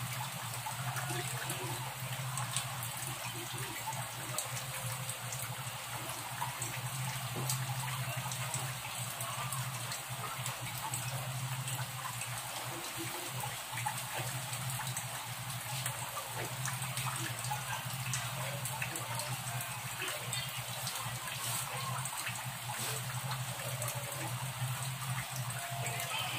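Chicken necks simmering in a soy sauce and water adobo braise in a metal pan: the liquid bubbles steadily at the boil with small pops and crackles. A steady low hum runs underneath.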